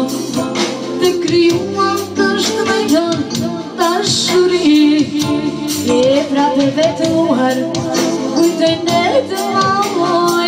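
A woman singing into a microphone, amplified over band music with a steady beat.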